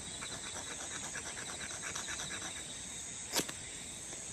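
Steady chirping of insects, with a quick run of short ticks in the first couple of seconds and one sharp click about three seconds in.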